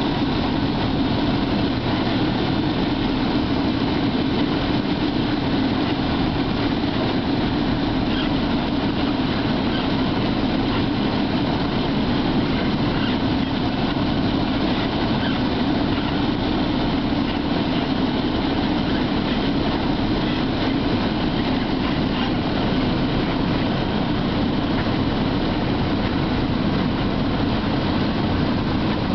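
Single-engine light aircraft's piston engine and propeller running steadily, heard from inside the cockpit.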